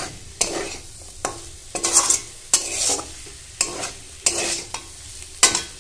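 A spatula scraping and stirring bottle gourd greens and vegetables around a metal pan, about two strokes a second, with a light sizzle between strokes. The water has fully cooked off and the greens are frying dry on high flame, catching on the pan.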